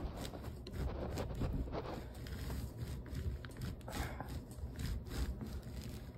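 Large 3D-printed PLA ring bearing with steel BB balls being turned by hand under nearly a person's full body weight: a faint rubbing, rumbling roll with many small irregular clicks as the balls run in the plastic races, still rotating despite the load.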